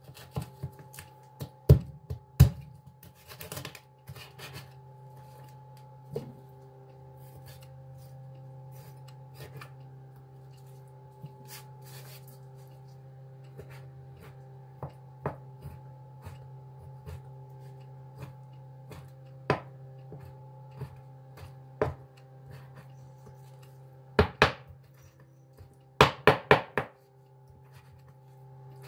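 Cleaver chopping raw chicken on a plastic cutting board: sharp knocks in irregular clusters, busiest in the first few seconds and again near the end, with scattered single chops between. A steady low hum runs underneath.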